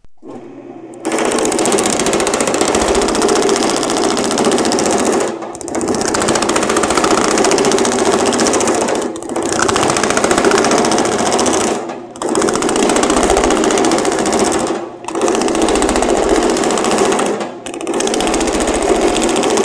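Dake power hammer with linear shrinking dies pounding sheet metal at a fast, steady rate. It starts about a second in and runs in six stretches of a few seconds each, with brief pauses between passes.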